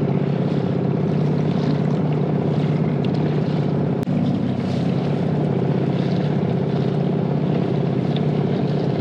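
Boat motor running steadily at an even pitch, a constant low hum.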